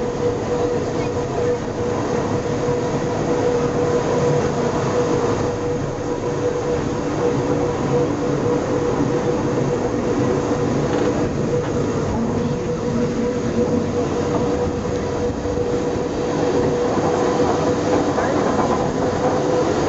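Cogwheel railcar running on a steep rack railway: a steady whine over the continuous rumble of the wheels on the track.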